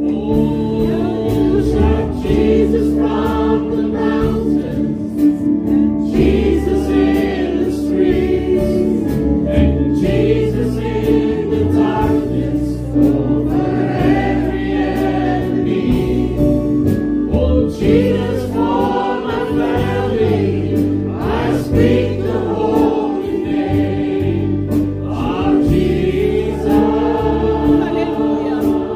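Christian worship music: voices singing a gospel-style worship song over steady sustained chords.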